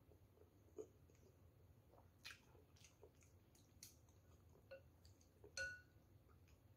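Near silence with faint eating sounds: soft chewing and a few light clicks of chopsticks and a metal spoon in a bowl of noodle soup, the loudest a little after five seconds in.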